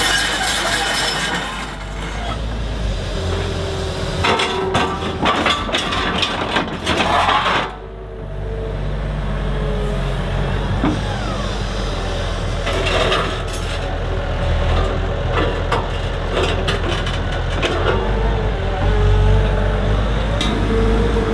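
Komatsu HB215LC hybrid excavator's diesel engine running steadily under load, with repeated clanks and knocks from the machine as it works.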